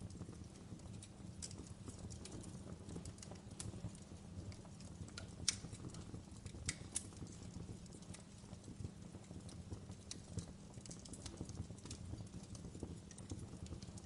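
Fireplace fire crackling faintly over a steady low rumble, with irregular pops and snaps, the sharpest about five seconds in.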